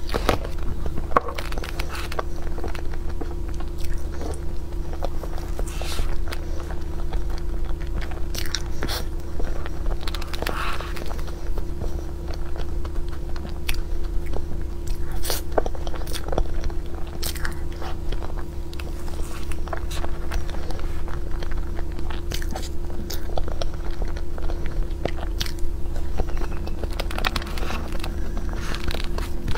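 Close-miked chewing and mouth clicks of someone eating soft blueberry crepe cake, with occasional light clicks of a metal fork on the cake and plate. A steady low hum runs underneath.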